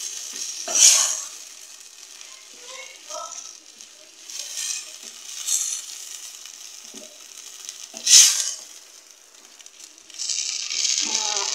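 Wooden spoon stirring matumbo (tripe) stew in a stainless steel pot, over the steady sizzle of the stew cooking. Two brief louder strokes come about a second in and about eight seconds in, and the sizzle grows louder near the end.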